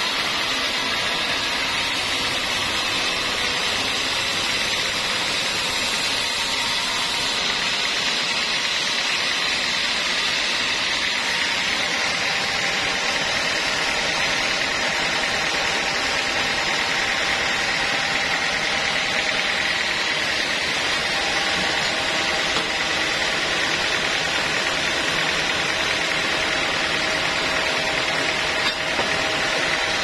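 Sawmill band saw running steadily and cutting through a teak log, a constant hiss with a high whine that does not change.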